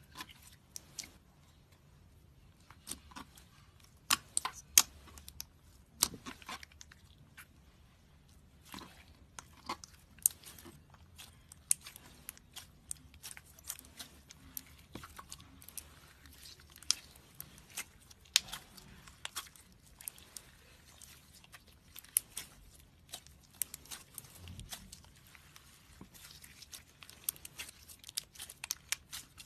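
Lipstick slime being squished and stretched by hand, making many irregular sticky clicks and pops.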